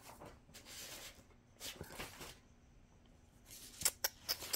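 Faint rustling and handling of printed paper sheets, with a quick series of crisp clicks and crackles near the end.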